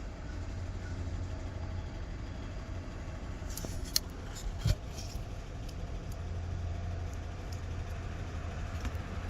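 Steady low rumble, with a few short sharp clicks in the middle.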